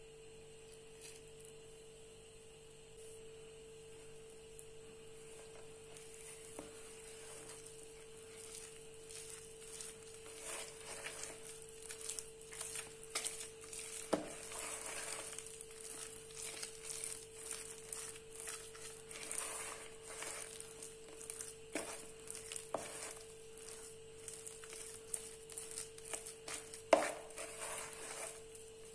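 Thick chickpea-flour batter being mixed by hand in a stainless steel bowl: irregular squelching and scraping that grows busier after several seconds, with occasional knocks against the bowl, the loudest near the end. A steady faint hum runs underneath.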